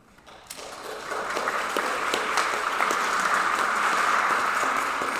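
Congregation clapping, starting about half a second in and building quickly to steady applause.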